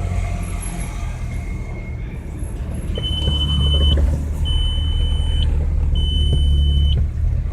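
1998 Audi A6 quattro's 2.8-litre V6 engine running, heard from inside the cabin, its rumble growing louder about two seconds in as the car gets going. Three electronic beeps, each about a second long, sound over it in the second half.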